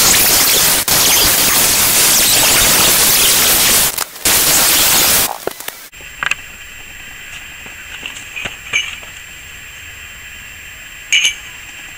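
Angle grinder with a cutoff wheel slicing through steel angle iron: a loud, steady rush of noise with a brief break about four seconds in, cutting off about five and a half seconds in. After that come a few light metal clinks.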